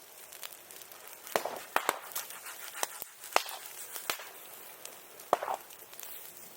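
Bonfire of burning branches crackling, with irregular sharp pops and cracks every second or so.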